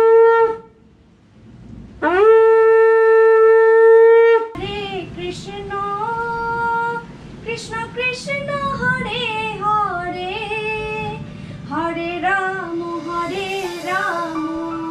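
Conch shell (shankha) blown in long, steady, loud blasts: one ends about half a second in, another runs from about 2 to 4.5 seconds. After that, singing with a wavering melody carries on.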